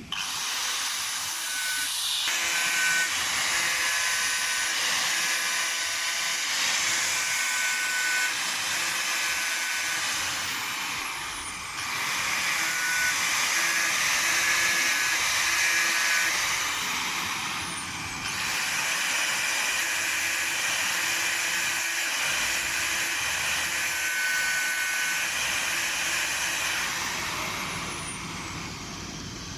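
Electric power tool running steadily with a loud hissing, grinding noise and a faint whine. The sound breaks off and resumes abruptly twice.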